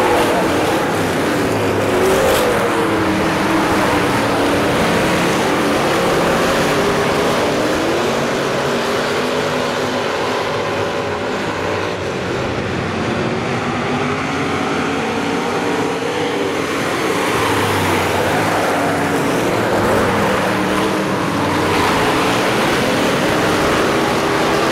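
Several hobby stock race cars running laps on a dirt oval, their engines rising and falling in pitch as they go through the turns.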